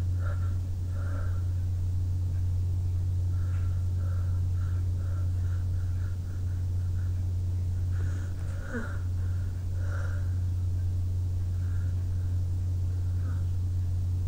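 Soft sniffling and breathing through a runny nose, over a steady low hum, with one brief sharper sniff about nine seconds in.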